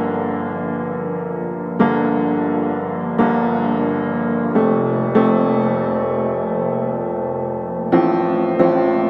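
Background piano music: chords struck every one to three seconds, each ringing on and slowly fading before the next.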